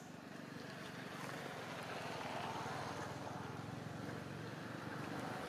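A motor engine running, its steady low pulsing growing gradually louder.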